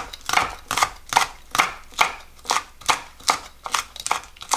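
Chef's knife mincing cheongyang green chili peppers on a wooden cutting board: a steady run of knocks of the blade on the board, about two and a half a second.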